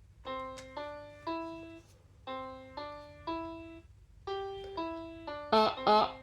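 Children's electronic toy keyboard playing a simple melody of single notes in short three-note phrases, each note fading after the key is struck. Near the end three louder notes with a wavering pitch.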